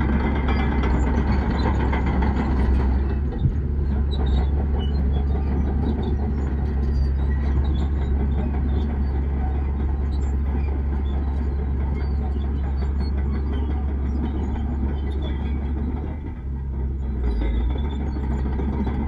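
Heavy diesel engine of earthmoving machinery running steadily with a deep drone, a single knock about three and a half seconds in, and a brief drop in level near the end.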